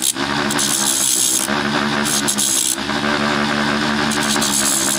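Battery-operated rotary tool running at low speed with a steady motor whine, its cutoff wheel grinding the splayed rivet end off a small steel coupler pin. A high grinding hiss comes and goes three times as the pin is pressed to the wheel and twirled against it.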